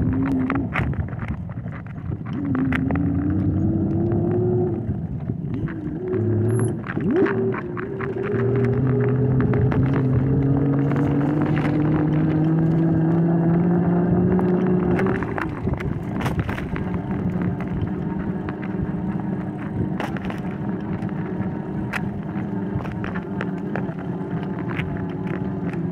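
A vehicle's motor running with a steady hum that rises slowly in pitch as it speeds up, twice, then settles lower about halfway through, over road noise and scattered clicks.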